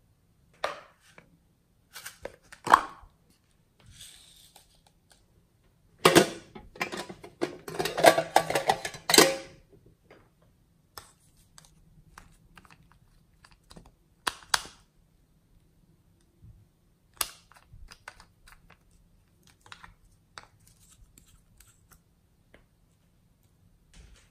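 Close-up handling of plastic slime supplies, a clay piping bag and containers: scattered clicks, taps and scrapes. About six seconds in comes a dense crackling and scraping that lasts about three seconds.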